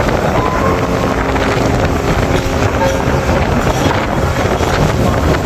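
Wind buffeting the microphone over a passenger ferry's steady engine and the rush of choppy sea water against the hull.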